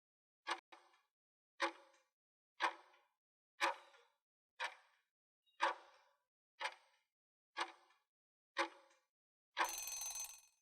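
Quiz countdown-timer sound effect: nine sharp ticks about a second apart, then about a second of ringing alarm sound near the end as the answer time runs out.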